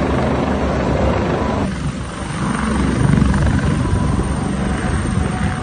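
A large Airbus helicopter with its rotor beating and engines running as it flies low and then settles toward landing. The sound changes abruptly a little under two seconds in.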